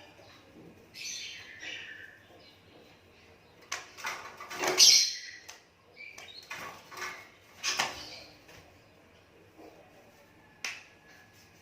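Asian pied starling calling in scattered harsh squawks and short whistled notes, one sliding down in pitch about a second in, the loudest squawk about five seconds in.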